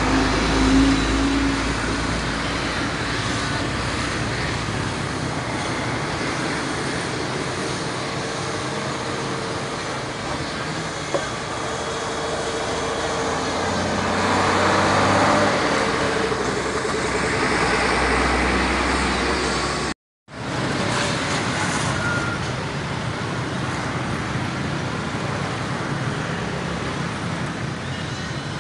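Heavy mixed road traffic driving past close by: diesel trucks, buses, cars and motorcycles, a continuous rumble of engines and tyres that swells about halfway through as a large truck passes. The sound cuts out for a split second about two-thirds of the way in.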